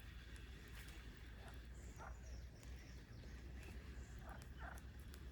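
Faint outdoor background with a steady low rumble and a few short, high chirps, the clearest about two seconds in and again between four and five seconds in.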